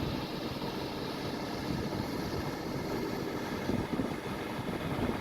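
Steady low rumble of distant engines, with no distinct events.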